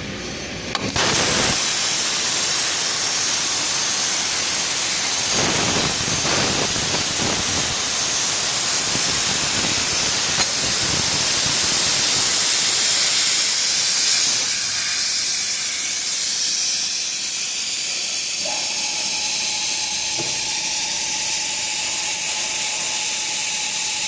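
CNC table plasma cutter's torch cutting sheet metal: a loud, steady hiss of the arc and air jet that starts about a second in and holds. A thin steady tone joins it in the last few seconds.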